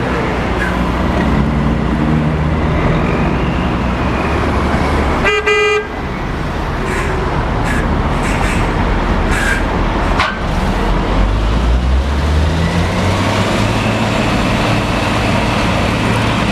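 Wirtgen W2000 cold milling machine running under load, its diesel engine and milling drum making a steady, heavy noise as it grinds up the road's asphalt. A short horn toot sounds about five seconds in.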